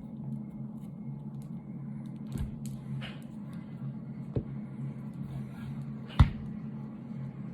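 Hands working at a small battery's plastic packaging, with a few sharp clicks and knocks, the loudest about six seconds in, over a steady low hum.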